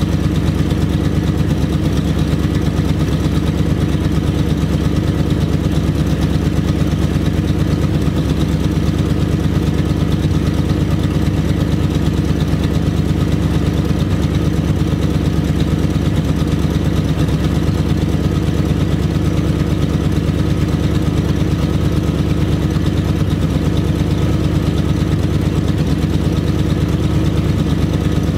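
1978 Chevrolet pickup's engine idling steadily, warming up after a cold start.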